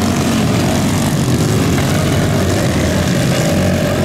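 Several youth racing ATV engines running together in a steady, loud buzzing drone.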